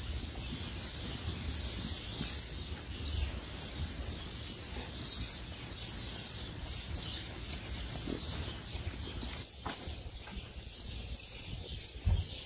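Small birds chirping repeatedly over a low, steady rumble, with a couple of short thumps near the end.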